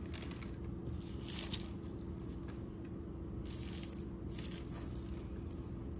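Metal costume jewelry clinking and jingling as pieces and chains are handled, in a few short spells about a second in, around three and a half seconds and again near four and a half seconds. A steady low hum runs underneath.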